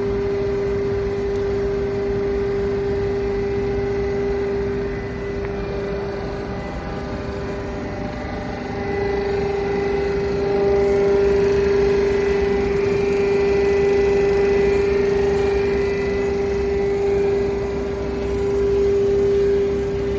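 Hydraulic scrap metal baler's power pack running: the pump and motor make a steady whine over a low rumble, growing louder about halfway through as it works.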